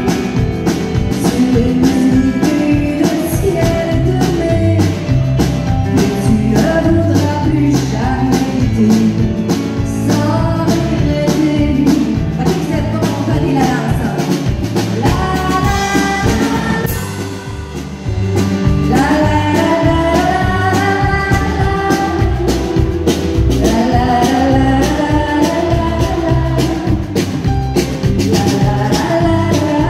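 A woman singing into a microphone with a live band: drum kit keeping a steady beat under bass and electric guitar. The band drops back briefly a little past halfway, then comes in again.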